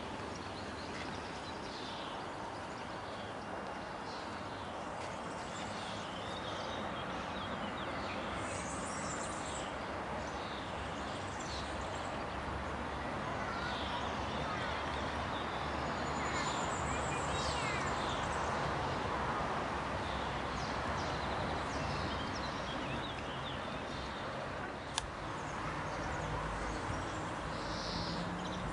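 Steady outdoor background noise with scattered short bird chirps, and a single sharp click near the end.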